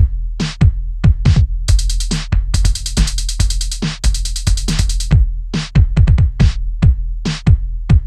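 Live electronic drum machine pattern: deep kick drums that drop in pitch, with short noisy hi-hat and percussion hits in an uneven, broken rhythm over a steady low bass.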